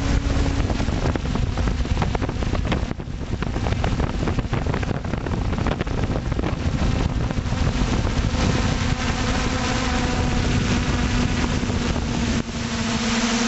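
An FPV drone's motors and propellers humming steadily, mixed with heavy wind buffeting on its onboard camera's microphone. The hum's pitch stands out more clearly in the second half.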